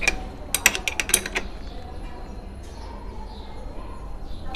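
Sharp metal clicks and clinks of a spanner working a crank removal tool on a bicycle's square-taper crank: a quick run of six or seven in the first second and a half, then quieter.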